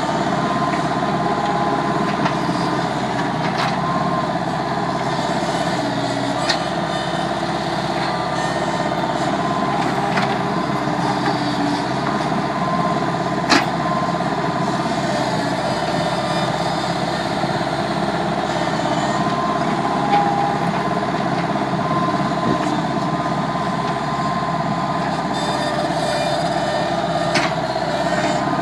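Bobcat skid-steer loader's diesel engine running steadily while it works a backhoe attachment, with a few short sharp knocks from the attachment scattered through.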